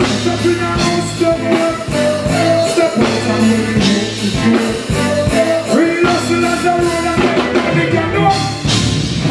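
Live reggae band playing with a steady beat (drum kit, strong bass and guitar) and a voice singing over it.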